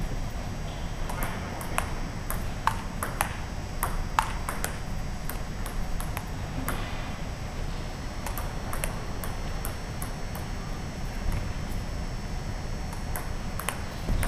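Table tennis ball clicking back and forth off the paddles and table in rallies, with pauses between points.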